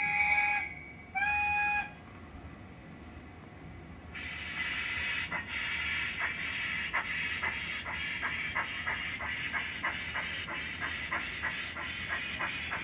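Sound decoder in a model GWR 57xx pannier tank locomotive: two short steam-whistle toots, then about four seconds in the hiss of steam starts with a steady beat of exhaust chuffs that gradually quickens as the loco pulls away.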